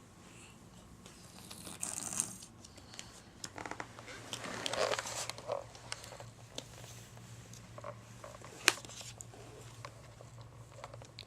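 Scattered rustling and crinkling with light clicks and taps, like something being handled or played with. A few faint short pitched sounds come about four to five and a half seconds in, and one sharp click near nine seconds.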